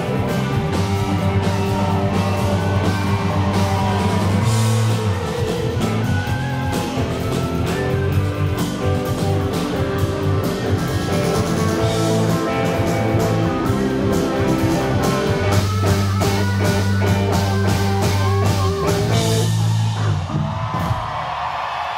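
Rock band playing live through a festival PA: electric guitars, bass and drum kit with a steady beat. The song ends about two seconds before the close, and the crowd starts cheering.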